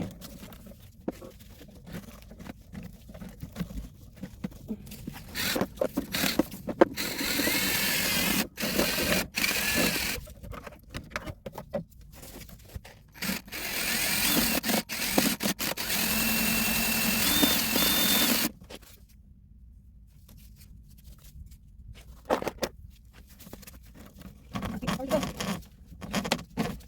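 Cordless drill spinning a drill-driven drain snake in a clogged drain line, running in bursts of a few seconds with quieter gaps of knocks and scrapes between. The longest run stops sharply about two-thirds of the way through.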